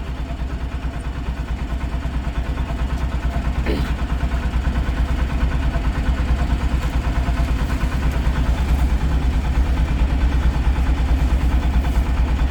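Mahindra Jeeto's diesel engine idling with a steady, even rhythm, running again after its no-start fault was reset.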